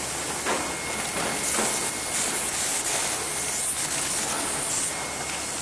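Steady mechanical noise with a hiss from packing-room machinery, including a continuous band sealer sealing a snack bag; the hiss is brighter and louder through the middle few seconds.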